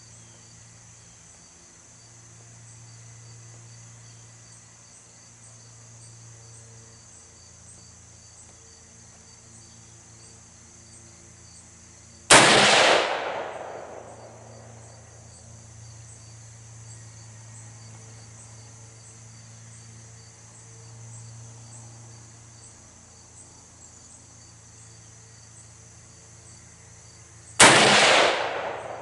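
Two single shots from a Daniel Defense MK12 5.56 mm rifle, about fifteen seconds apart, each a sharp crack with an echoing tail. Insects chirr steadily throughout.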